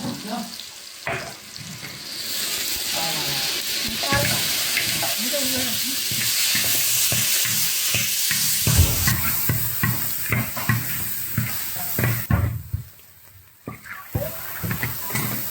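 Food frying in hot oil in a wok, sizzling loudly, with a spatula scraping and knocking as it is stirred. The sizzle is strongest from about two seconds in and dies away about twelve seconds in.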